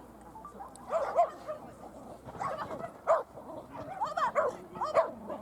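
A dog barking in a series of short, high barks, some coming in quick pairs.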